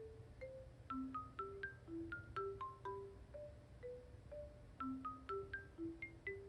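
Background music: a light melody of short single notes on mallet percussion, about two to three notes a second.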